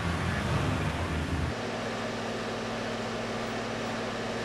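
Road traffic, vehicles driving along a street with a low rumble. About a second and a half in, it cuts abruptly to the steady, even hum of a micro-surfacing paving truck's engine running.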